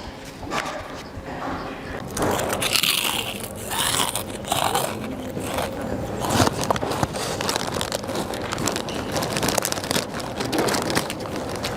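Loud, irregular crunching of food being bitten and chewed.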